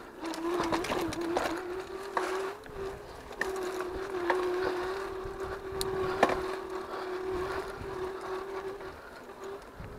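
Electric bike motor whining at a steady pitch under power, with scattered knocks and rattles as the bike rides over a rough sandy trail; the whine drops away about nine seconds in.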